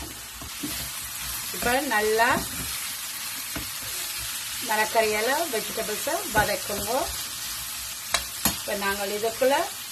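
Chopped vegetables sizzling in ghee in a metal pan, stirred with a spatula. The spatula scrapes through the pan in four strokes, with a few sharp taps against the pan.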